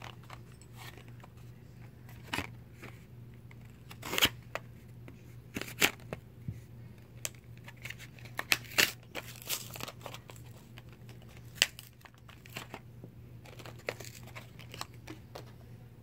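Packaging being handled and cut open: irregular crinkling and tearing with sharp plastic clicks and taps, as a clear plastic coin capsule is unpacked.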